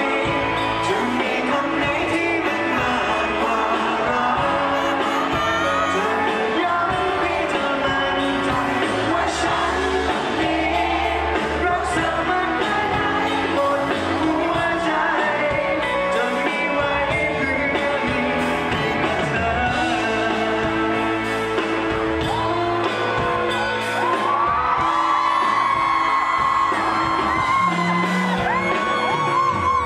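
Live pop-rock band playing a love song through a concert PA, with a male vocalist and the crowd singing along and fans yelling and whooping.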